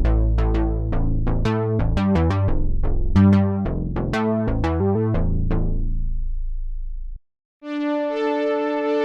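Arturia Synthx V software synthesizer, an emulation of the Elka Synthex, playing a fast pattern of short plucked notes over a bass line. The pattern fades away about seven seconds in, and after a brief silence a new patch starts a steady held chord near the end.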